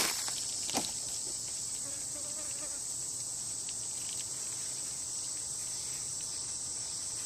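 Steady high-pitched insect chorus, with one soft click about a second in.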